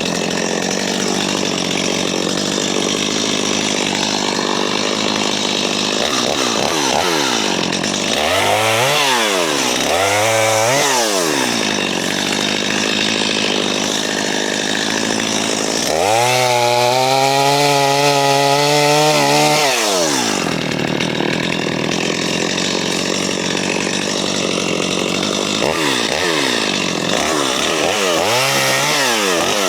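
JCB 55Z mini excavator's diesel engine and hydraulics running hard, the engine pitch rising and falling several times as the machine works under load.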